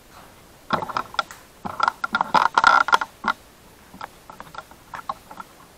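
Camera handling noise: a dense run of clicks, rattles and scrapes close to the microphone lasting about two and a half seconds, then a few lighter ticks as the camera is settled into place.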